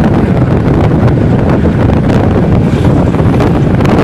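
Wind buffeting the microphone on a moving motorbike: a loud, steady low rumble.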